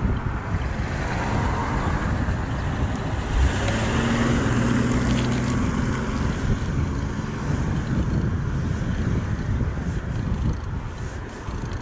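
Wind buffeting a chest-mounted action camera's microphone while cycling, a steady low rumble. A motor vehicle passes, swelling and fading about three to six seconds in.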